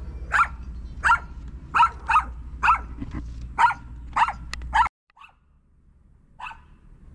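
A small dog barking repeatedly, about two barks a second, stopping abruptly about five seconds in; a couple of fainter barks follow.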